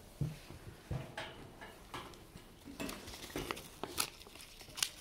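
Boer goats crowding close on straw bedding: irregular rustling with scattered clicks and knocks from their hooves and mouths as one nibbles at a paper card.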